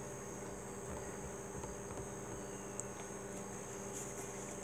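Quiet room tone: a steady low electrical hum with a faint, steady high-pitched whine, and a few faint small clicks.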